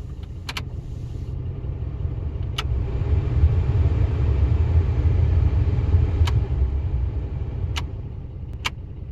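Ford F-150 pickup truck running with a steady low rumble that swells in the middle, with a few sharp, irregularly spaced clicks.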